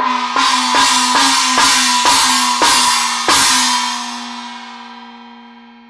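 Chinese gong struck about eight times in quick succession, each hit a bright crash over a steady ringing tone. After the last strike, a little past halfway, the ring fades away slowly.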